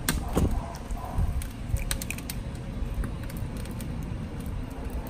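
Small clicks and taps of duck eggshells being cracked and picked apart by hand as the yolks are separated, scattered irregularly over a steady low rumble.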